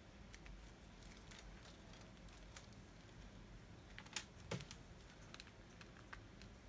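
Faint small clicks and taps of hands handling a clear plastic bag and a tape measure, with two sharper clicks about four seconds in.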